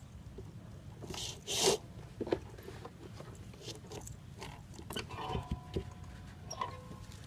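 Red thread being drawn through the white cover of a hand-stitched baseball: two rasping pulls about a second and a half in, the loudest sounds, with soft clicks and rustles of the needle and thread between. A faint held two-note tone sounds in the background for about a second and a half in the second half.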